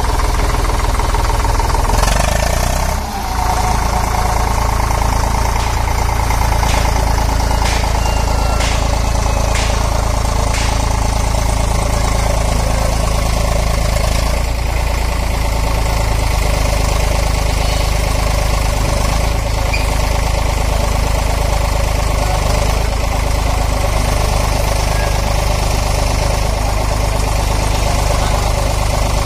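Tractor engine running steadily at idle, powering a tractor-mounted sugarcane grab loader. A few sharp knocks come in the first ten seconds or so.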